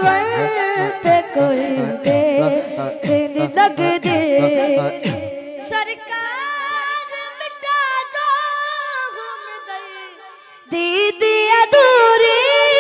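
A boy singing a Punjabi naat a cappella into a microphone, over a steady hummed drone with a low rhythmic pulse beneath for the first five seconds. A long held line fades away about ten seconds in, and the voice comes back loud just before the end.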